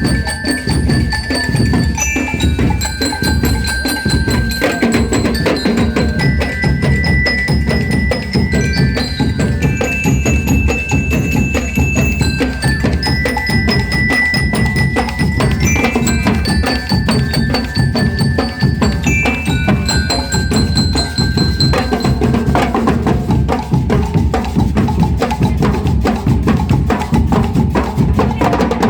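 Marching band bell lyres (liras) ringing out a stepping melody over steady, rapid drumming.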